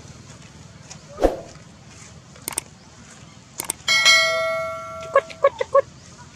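Subscribe-button sound effect: a bright bell-like ding that rings out and fades over about a second, followed by a quick run of four clicks. A few sharper clicks and a single knock come in the seconds before it.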